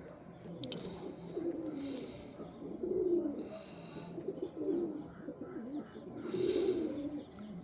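Domestic pigeons cooing: a series of low, wavering coos, about four of them, coming every second or two.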